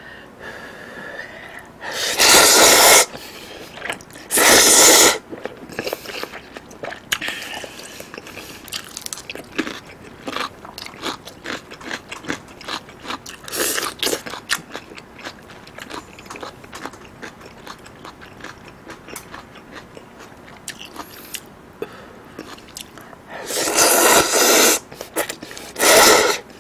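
A person eating thick udon noodles into a close microphone: two loud slurps a few seconds in and two more near the end, with wet chewing and small smacking clicks in between.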